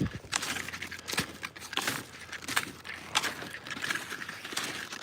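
Skis and ski poles crunching in snow while climbing uphill: irregular short strokes, roughly one or two a second.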